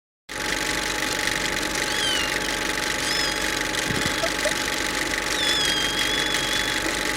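Steady machinery noise that starts abruptly a moment in, with a few short high squeaks over it.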